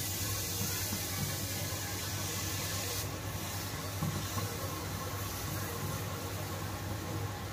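Jalebi batter frying in hot oil in a frying pan, a steady sizzling hiss as the spirals are piped in, over a steady low hum. The hiss eases a little about three seconds in.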